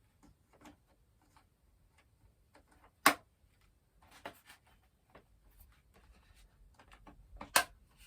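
Handling of a foam RC jet model's parts, with two sharp snaps about four and a half seconds apart as a piece clicks into place, the second the louder, and faint ticks and rustles between.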